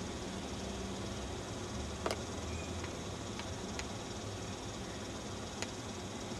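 Steady background hum and hiss with a few sharp clicks, the loudest about two seconds in.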